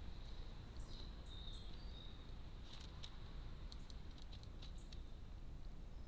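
Carrion crow pecking at seed and a fat ball in a plastic feeder dish: a run of light, sharp beak clicks and taps, most of them in the second half.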